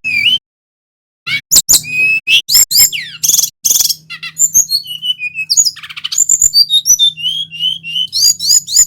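Male brown-chested jungle flycatcher (sikatan rimba dada coklat) singing a fast, varied song of sharp whistles, down-slurred notes and short trills, over a steady low hum. The song pauses briefly about a second in and breaks off abruptly at the end.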